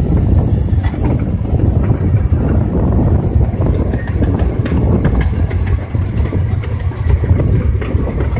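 Steady low rumble and rattle inside the cab of a small steam locomotive under way: the running gear and wheels going over the track.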